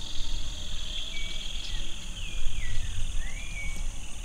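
Steady high chirring of insects, with a bird giving a few short whistled notes in the middle, two falling and one rising. A low, uneven rumble of wind on the microphone runs underneath.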